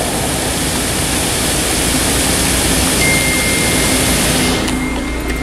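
Steady rushing and splashing of the Fountain of the Naiads' water jets, mixed with city traffic. A thin, steady high tone comes in about halfway, and the hiss drops away just before the end.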